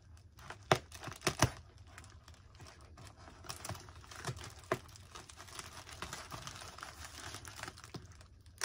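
Plastic packaging being torn and crinkled open by hand: irregular sharp crackles and snaps, a few loud ones in the first second and a half, then a denser run of crackling in the second half.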